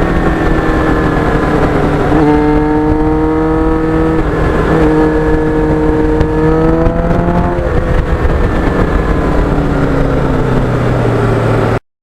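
Kawasaki GPX750R's inline-four engine running under way, with heavy wind noise. The engine note steps up about two seconds in, climbs again a few seconds later, drops sharply near eight seconds as it shifts, then slowly winds down. The sound cuts off abruptly near the end.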